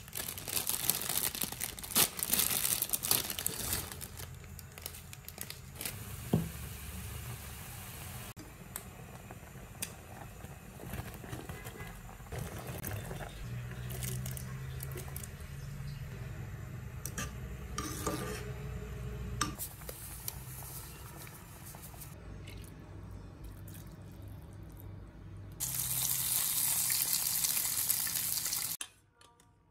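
Stovetop cooking: water sloshing in a pot with knocks and clinks of pans and utensils. Near the end an egg sizzles loudly in hot oil in a frying pan for about three seconds, then stops suddenly.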